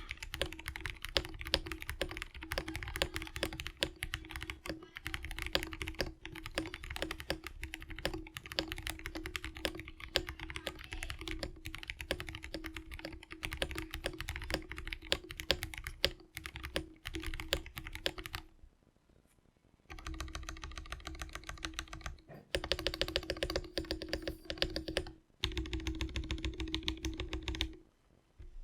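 Typing on a Rama Kara custom mechanical keyboard with a polycarbonate plate, lubed Gateron Milky Black linear switches and thick PBT keycaps: a dense, fast run of keystrokes. About 18 seconds in the typing stops for a moment, then comes back in three shorter bursts with brief pauses between them.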